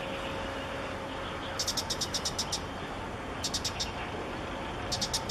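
Short runs of rapid, high-pitched clicking chirps come three times: about eight clicks early on, then four or five twice more. Under them runs steady background noise with a faint steady hum.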